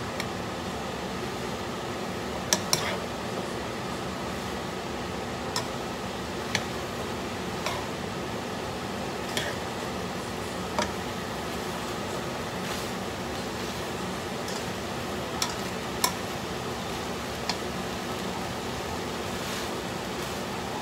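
Shrimp and vegetables being stirred in a granite-coated wok, the cooking utensil clicking against the pan about ten times, over a steady hiss from the hot pan.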